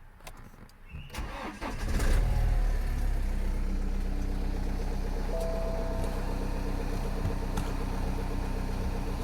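BMW 320d's four-cylinder diesel engine cranking briefly and catching about two seconds in, flaring up and then settling into a steady idle.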